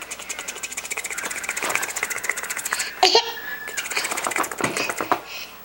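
A pet's rapid rattling vocal pulses, a fast even run lasting about three seconds, followed by a sharp sound and a brief high whine.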